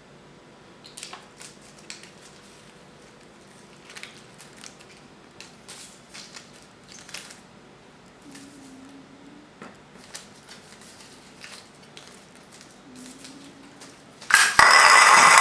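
Scattered light clicks, taps and rustles of kittens playing on a tiled floor, batting a paper receipt and nosing at ceramic milk bowls. Near the end a sudden loud, sustained sound with a few steady high tones cuts in.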